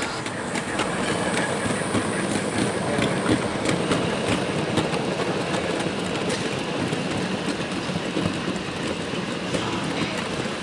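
0 gauge model goods train running along the track, its wagon wheels clicking over the rail joints in a quick, steady clatter.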